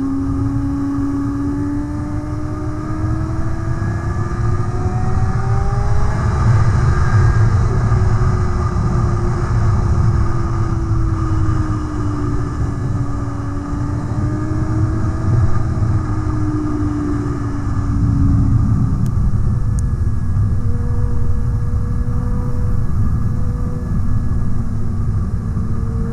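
Sport motorcycle engine running under way. Its pitch climbs over the first several seconds, then rises and falls with the throttle and settles lower near the end, over a heavy rush of wind and road noise.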